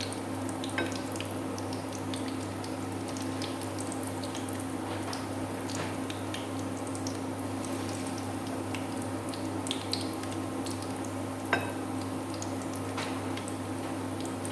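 Battered vegetables deep-frying in hot oil: a steady sizzle with many small scattered pops over a constant low hum. One sharp knock about three quarters of the way through.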